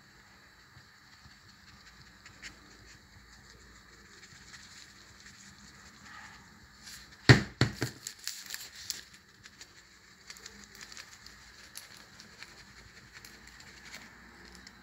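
Plastic icing-sugar shaker pot handled and shaken over waffles: a sharp clatter of knocks about halfway through, then scattered light taps.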